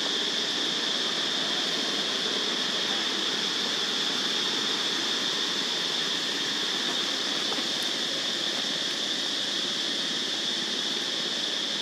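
Steady high-pitched drone of cicadas, unbroken and even in level over a continuous hiss.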